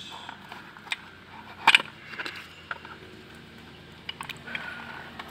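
Cardboard box of new brake pads being opened and handled: crinkling packaging and scattered small clicks, with a sharper clack just under two seconds in as the pads are taken out.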